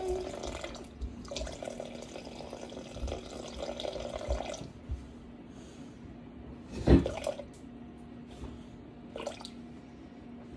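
Warm water poured from a plastic measuring cup into a glass bowl of sourdough starter, running for a few seconds and then trailing off. A single thump about two-thirds of the way through.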